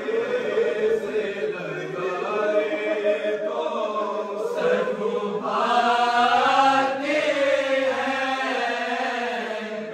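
A group of men chanting a nauha, a Shia mourning lament in Urdu, together without instruments.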